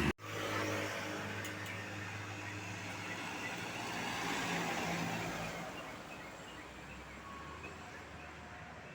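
Tour bus engine running as the bus passes, building and then fading away over the last few seconds.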